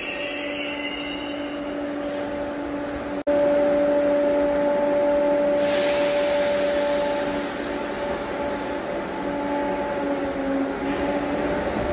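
A train at a station platform with a steady hum from its onboard equipment. The sound cuts out for an instant about three seconds in, then comes back louder. A sudden hiss starts about five and a half seconds in and fades over a couple of seconds.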